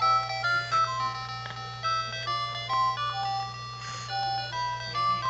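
Electronic baby toy playing a simple tune of short, clean beeping notes that step up and down, over a steady low hum.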